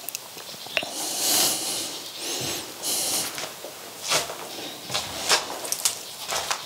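Close-up breathing and footsteps crunching over loose plaster and rubble on a floor, heard as irregular hissy bursts every second or so with a few sharp clicks.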